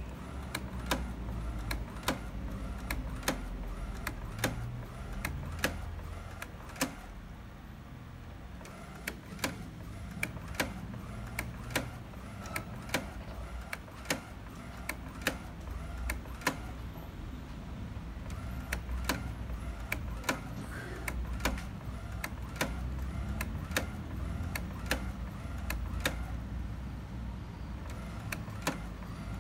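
Inkjet printer printing a photo, its paper slowly feeding out: a steady low motor hum with sharp mechanical clicks every second or so.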